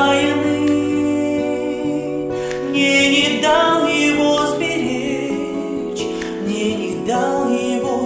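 A woman singing a melody with long held, wavering notes over instrumental accompaniment.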